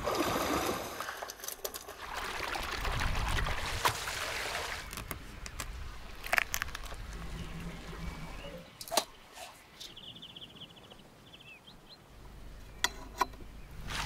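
Water splashing and trickling as a landing net holding trout is lifted out of a pond, followed by scattered sharp taps and clicks.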